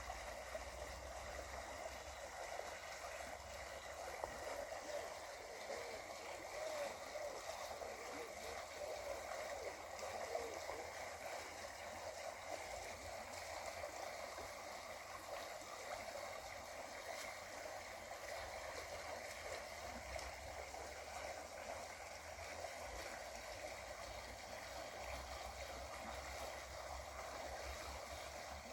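Shallow river water running over rocks: a steady burbling, gurgling flow.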